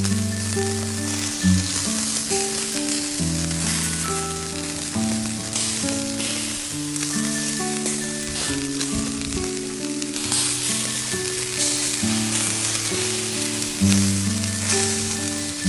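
Chicken barbecue skewers sizzling on a charcoal grill, a steady hiss, under background music of slow held notes.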